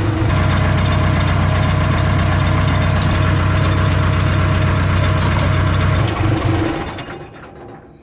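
Case backhoe's diesel engine idling steadily, left running to warm up, then dying away over the last two seconds.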